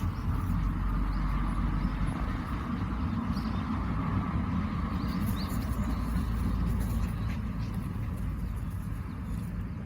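Steady low rumble of outdoor background noise with a few faint clicks.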